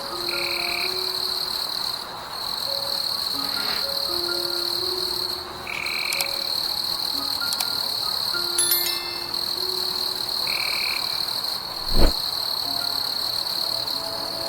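A steady, high-pitched night chorus of calling animals, with short higher calls every few seconds and soft chime-like notes underneath. A single dull thump about twelve seconds in.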